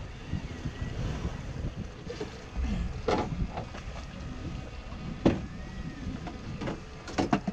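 Wind buffeting the microphone and water against the hull of a drifting fishing boat, a steady low rumble, with two sharp knocks about three and five seconds in.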